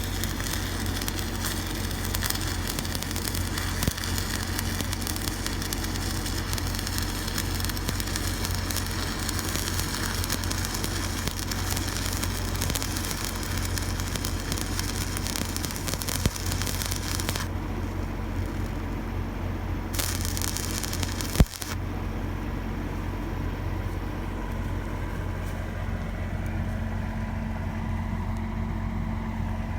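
Electric arc welding on an irrigation mainline pipe: the arc crackles and hisses steadily, breaks off a little past halfway, strikes again for about a second and a half, then stops. A steady low engine hum runs underneath, and there is one sharp knock just after the last burst.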